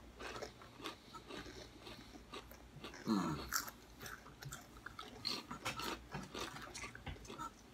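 Kettle-cooked russet potato chips crunching as they are bitten and chewed: a run of sharp, irregular crackles. About three seconds in there is a short hum that falls in pitch.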